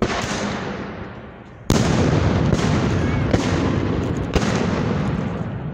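Black-powder guns firing blanks: about five shots, the loudest about two seconds in, each trailing a long rumbling echo that overlaps the next.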